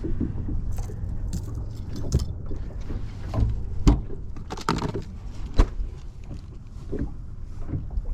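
Scattered metallic clinks and knocks from a hand-held fish scale and the fish being handled while a bass is weighed, over a steady low rumble.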